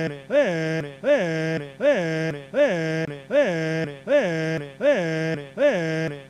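An old man's voice saying a drawn-out "eeehhh" over and over, the same short sound looped about every three-quarters of a second, about eight times. Each one starts with a quick rise and fall in pitch, then holds steady before dropping away.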